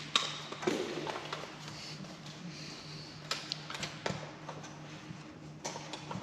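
Scattered light clicks and taps from handling small hand tools and wiring, over a steady low hum.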